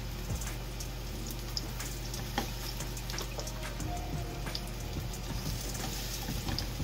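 Sliced mushrooms sizzling in hot oil in a frying pan, a steady hiss broken by scattered pops and crackles.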